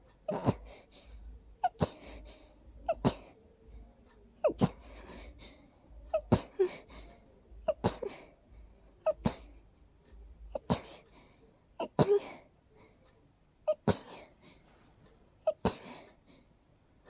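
A person sneezing over and over in a rapid fit, about a dozen sneezes roughly every one and a half seconds, each with a short 'ah' intake before it. It is an allergic sneezing fit set off by sniffing daisies.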